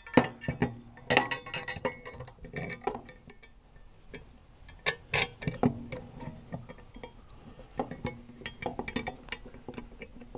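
Steel brackets, plates and bolts of a mobile base kit clinking and knocking against each other as they are handled and fitted together by hand, in irregular clicks and taps, the sharpest just after the start.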